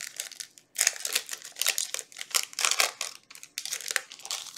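Foil booster pack wrapper and trading cards being handled: a rapid series of crinkling, rustling strokes, ending abruptly near the end.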